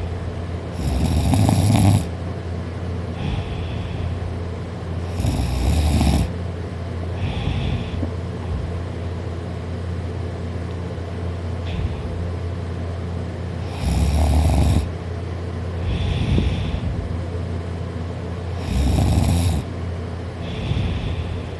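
A person sleeping on their back snoring loudly: four snores of about a second each, each followed a second or so later by a shorter, softer breath, with a long pause of about six seconds in the middle.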